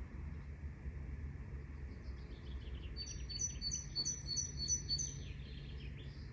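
A songbird singing a quick run of falling notes, then a high two-note phrase repeated about seven times, starting about midway and ending near the end, over a steady low rumble of forest ambience.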